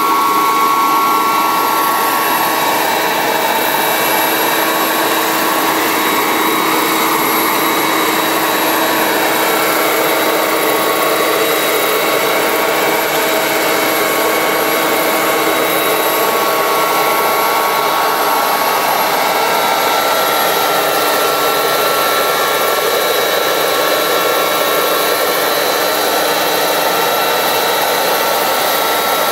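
A JetCat model gas turbine powering a large radio-controlled CH-53 Super Stallion helicopter runs steadily with a high whine and rotor noise as the model hovers.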